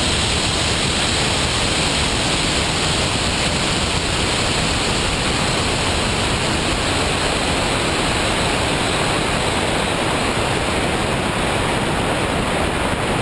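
Steady, loud rushing noise, even from low to high pitches, with no tone or rhythm. It cuts off abruptly at the very end.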